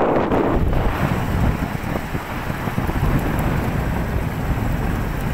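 Wind buffeting the microphone of a phone held out from a moving motorcycle, a loud rough rumble over the running of the bike's engine, strongest in the first second.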